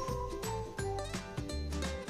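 Background music: an upbeat tune with a steady beat, a bass line and held melody notes.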